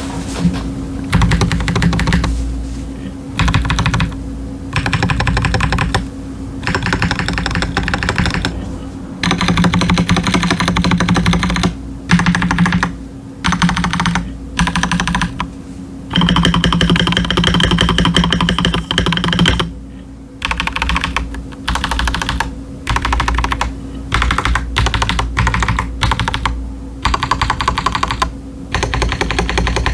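Fast typing on a stock Akko 5075s mechanical keyboard with Gateron Azure Dragon V2 switches and doubleshot PBT ASA-profile keycaps: bursts of rapid key clacks broken by short pauses, with a couple of longer runs near the middle. A faint steady hum sits underneath.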